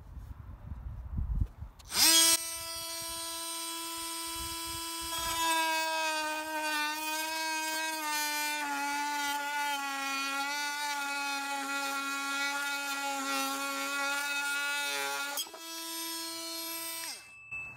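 Cordless oscillating multi-tool fitted with a long Arrow wood blade, starting with a steady high buzz about two seconds in. The buzz drops a little in pitch and wavers for about ten seconds as the blade cuts through a 2x2. Once through, it buzzes freely again briefly, then winds down with a falling pitch near the end.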